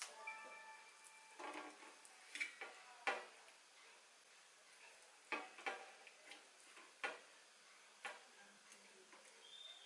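Faint, irregular light clicks and taps, about eight of them scattered unevenly, with a brief steady tone in the first second.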